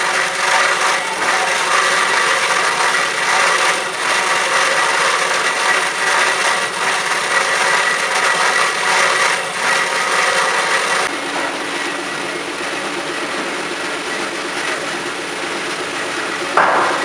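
Cormak S-280R semi-automatic band saw running, its blade cutting metal with a steady rasping hiss. About eleven seconds in the sound drops abruptly to a quieter, steady machine hum, with a brief sharp noise near the end.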